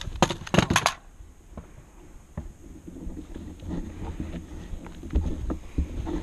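A quick cluster of sharp cracks in the first second, then low rumbling wind and handling noise on a body-worn camera's microphone, with a few faint knocks.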